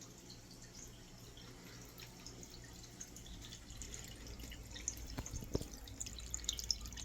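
Water trickling and dripping from a tank's waterfall, faint, with a low steady hum underneath and small scattered drips that grow a little louder over the last few seconds.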